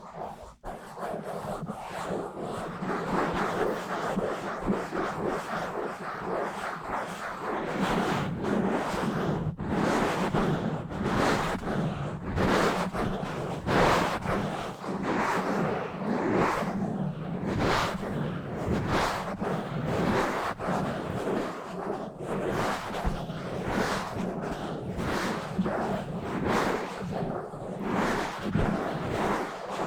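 Fast, rough scratching and rubbing directly on a microphone, a dense run of quick scratchy strokes, a little softer for the first couple of seconds.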